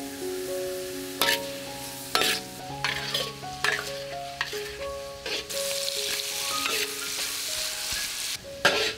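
Metal spatula scraping and stirring food in a wok of hot oil, a stroke every second or so, with the oil sizzling. The sizzle swells for a couple of seconds in the second half. Soft background music with held notes runs underneath.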